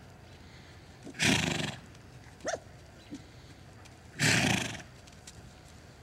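Horse snorting twice, about three seconds apart: two loud, breathy blasts through the nostrils, each about half a second long, with a brief high squeak between them.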